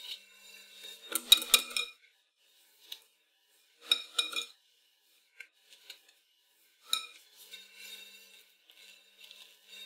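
Metal kitchen utensils clinking and scraping: a palette knife and whisk knocking against a metal mixing bowl as whipped cream is scooped out onto the cake, with softer scraping of cream being spread. The loudest clatter comes about a second in, with more clinks around four seconds and seven seconds.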